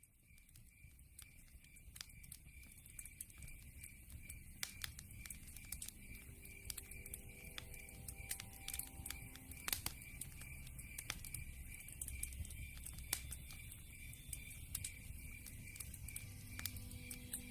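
Wood fire crackling in a fireplace: irregular sharp pops and snaps over a low rumble of burning logs, fading in over the first couple of seconds. Soft music begins to come in near the end.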